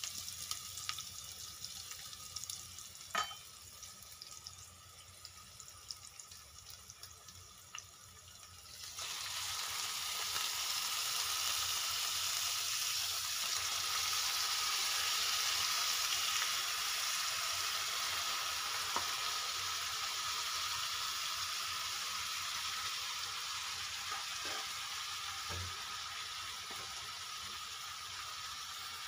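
Chopped onion, garlic and ginger sizzling in hot oil in a stainless steel pot. About nine seconds in the sizzle becomes much louder and stays loud, as raw meat goes into the pot and fries. There are a few light knocks along the way.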